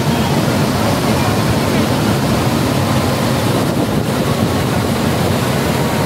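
Kundal Shahi waterfall, its water rushing and pouring over the falls in a loud, steady, unbroken noise.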